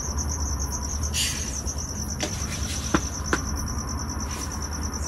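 Crickets chirping in a steady, fast-pulsing high trill, with a few sharp knocks of things being handled partway through.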